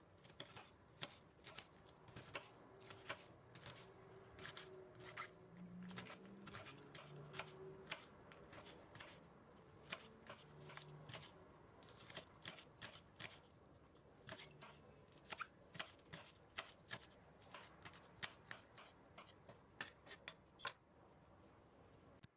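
Chef's knife slicing long green peppers into thin rings on a wooden cutting board: a run of sharp knocks of the blade on the board, unevenly spaced at about two or three a second, stopping near the end.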